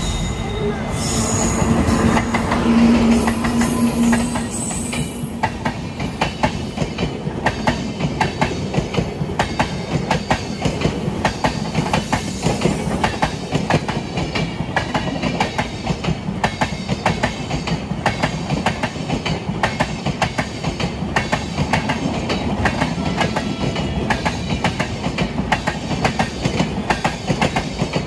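Indian Railways push-pull Shatabdi Express, hauled by WAP-7 electric locomotives, running past at speed. A steady tone is loudest about three seconds in, then a fast, even clickety-clack of coach wheels over the rail joints.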